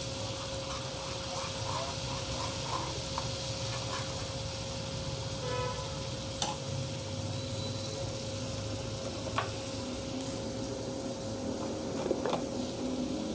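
Spiced oil sizzling in a frying pan as fennel powder and red chili powder are stirred in with a metal slotted spoon. A few light clicks of the spoon against the pan come partway through and near the end.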